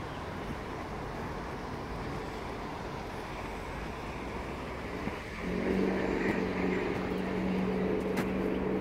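Steady background noise of road traffic; about five seconds in, a low, steady engine hum starts and the sound grows louder, holding at one pitch.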